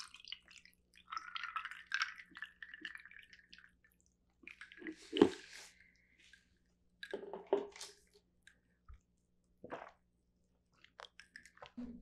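Sikhye poured from a plastic bottle into a glass mug for about three seconds, then a sharp knock about five seconds in. Gulps of the drink follow a couple of seconds later, with a small click near the end.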